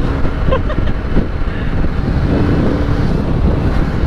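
Wind buffeting the microphone on a moving Benelli 302S motorcycle, with its 300cc parallel-twin engine running steadily underneath.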